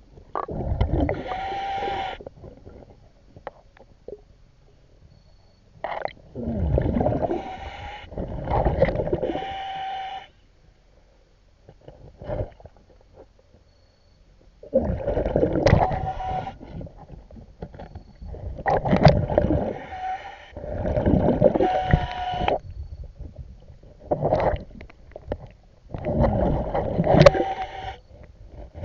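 Scuba diver breathing through a regulator underwater: each breath brings a gurgling rush of exhaust bubbles, with a hum in the regulator, in bursts of a second or two every few seconds, with quiet gaps between.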